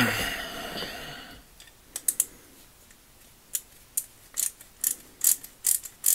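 Ratcheting hex-bit screwdriver turning the pin bolt into the swivel fork of an extendable breaker bar: a run of short, sharp ratchet clicks, about two a second, starting about two seconds in. A single sharp clack with a brief ringing comes right at the start.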